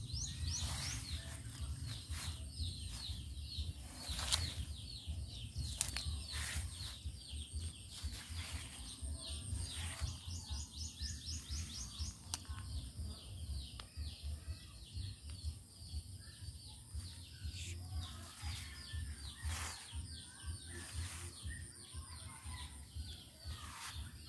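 Birds chirping continuously with high, short notes, breaking into quick runs of rapid falling notes about a second in and again around ten seconds in. Underneath is a steady low rumble on the microphone, with scattered clicks.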